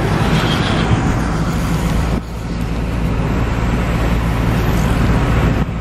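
Steady engine and road noise inside the cabin of a moving car, a low rumble under a hiss of tyres and wind. The noise dips briefly about two seconds in, then carries on.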